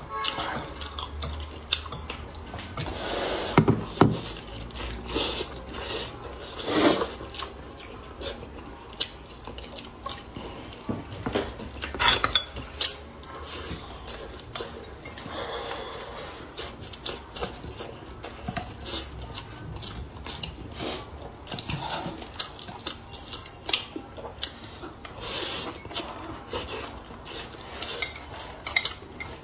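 Eating sounds: chopsticks clicking and tapping against a ceramic bowl, mixed with the chewing of rice-flour-coated pork. The clicks come irregularly throughout, with a few louder knocks.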